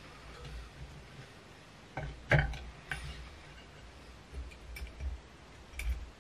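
Small clicks and taps from hands and tools working tying thread at a fly-tying vise, a handful of them, the sharpest about two and a half seconds in, with soft low bumps of handling in between.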